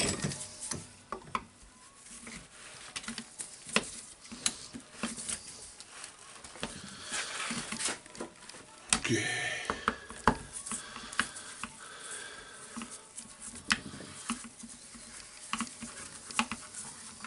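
Hand tools clicking, knocking and scraping against the metal parts of a partly dismantled Hilti TE706 demolition hammer as a cap on its housing is undone. The clicks are irregular, with a longer stretch of scraping around the middle.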